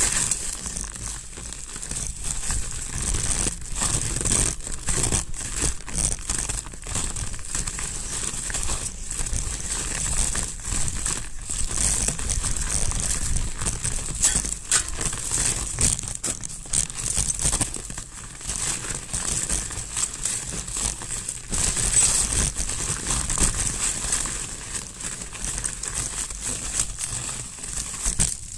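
Mountain bike tyres rolling over snow: continuous crunching and crackling, with many small clicks and knocks throughout.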